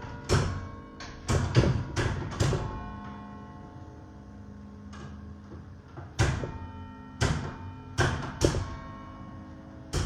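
Church tower bells played note by note as a Christmas carol. Each note is a sharp strike whose tone rings on and overlaps the next. About two and a half seconds in, the playing pauses for a few seconds while the bells keep ringing, then the tune picks up again.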